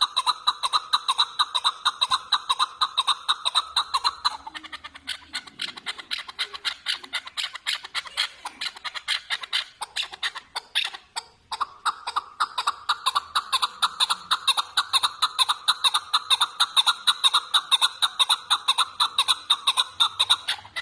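Chukar partridge calling: a fast, even run of repeated clucking notes, about four a second. A few seconds in the run turns looser and more ragged, then settles back into the steady rhythm for the second half.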